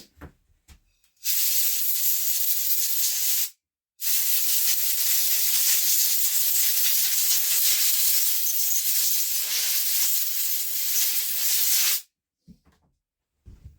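Compressed-air blow gun blasting cleaner residue off a freshly cleaned chainsaw part: a short blast of hiss, a brief pause, then a long steady blast of about eight seconds that cuts off suddenly.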